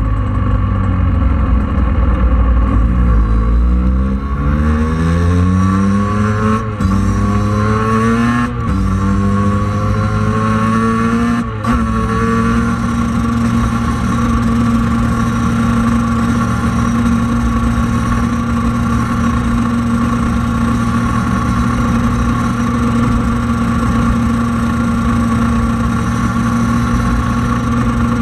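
Scooter engine revved while the scooter stands still: its pitch climbs in several rising sweeps with brief drops in the first half. It then holds at a steady high speed.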